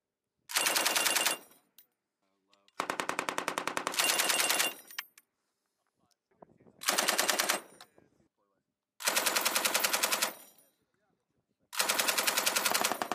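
Belt-fed machine gun firing five short bursts of automatic fire, each about a second long except a longer burst of about two seconds in the middle, with gaps of a second or two between bursts.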